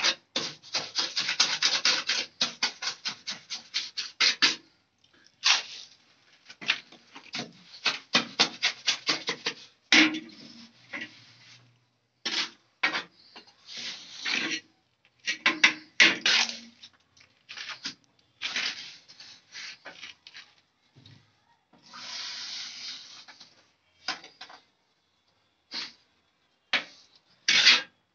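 A mason's trowel scraping wet cement mortar in short, quick strokes while a ceramic squat toilet pan is bedded and levelled. The first few seconds are a fast run of about five strokes a second. After that the strokes come in irregular groups, with one longer scrape a little over two-thirds of the way through.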